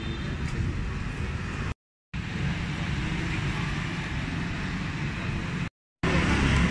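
Street traffic noise, a steady low rumble of passing vehicles, broken twice by brief cuts to silence.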